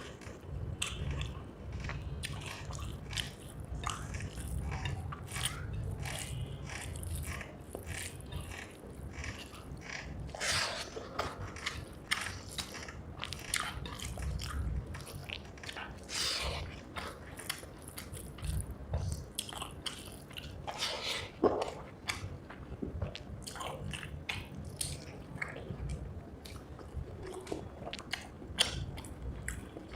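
Close-miked eating sounds: a person chewing mouthfuls of rice with fried egg curry, with many irregular wet mouth clicks and smacks over a low rumble of chewing.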